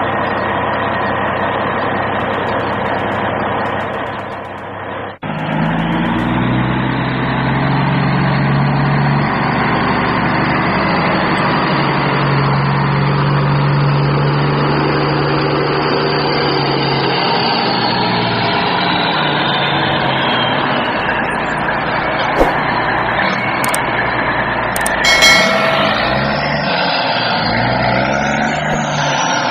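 JCB 3DX backhoe loader's four-cylinder diesel engine running and working, its pitch rising and falling with the throttle. The sound breaks off abruptly about five seconds in and comes straight back, and a brief high-pitched squeal with a few clanks comes about 25 seconds in.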